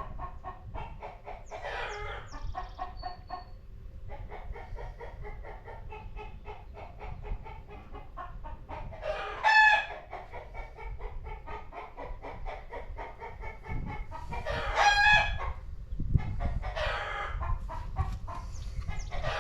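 A rooster crowing several times, each crow about a second long, with chickens clucking between the crows.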